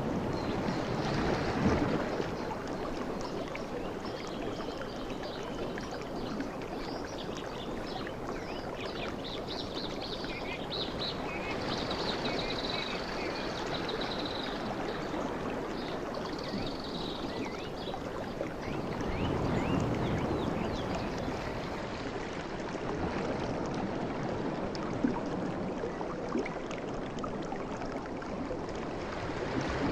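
Sea waves washing in a steady rush, swelling louder about two seconds in and again around twenty seconds in. Small birds chirp high above the surf through the middle of the stretch.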